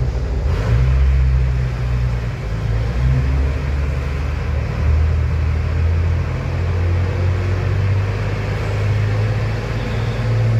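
Deep engine rumble whose pitch drifts up and down, from heavy vehicles and machinery while a ro-ro ferry is being unloaded at the quay.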